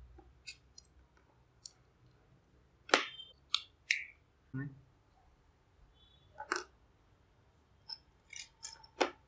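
Scattered small clicks and taps of plastic and rubber parts being handled as the rubber sleeve and glue stick are worked off a hot glue gun's metal heating barrel, the sharpest about three seconds in and near the end.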